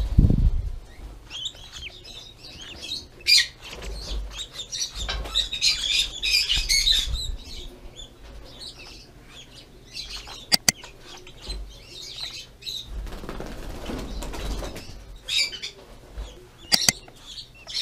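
Young Fischer's lovebirds chirping in short, high twittering bursts, with a few soft thumps and, twice, a quick pair of sharp clicks.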